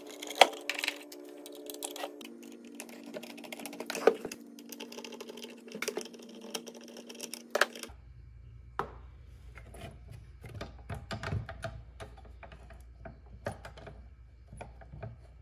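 Irregular light clicks and taps of a screwdriver and small metal Torx screws being worked out of a Milwaukee portable bandsaw's throat plate and handled. A faint steady hum underlies the first half and gives way to a low rumble about eight seconds in.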